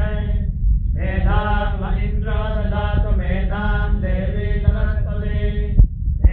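A voice chanting mantras in a pooja, a steady melodic recitation that pauses briefly about half a second in and then continues. A sharp click sounds near the end, over a steady low rumble.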